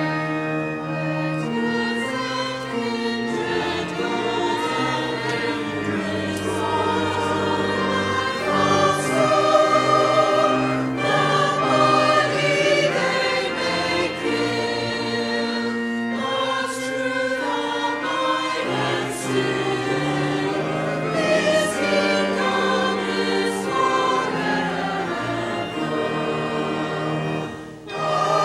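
Mixed church choir singing, with a brief drop in the music near the end before it carries on.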